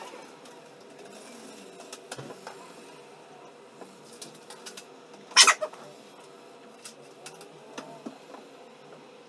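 Kitchen work sounds: scattered small clicks and knocks over a faint steady hum, with one loud, short clatter about five and a half seconds in.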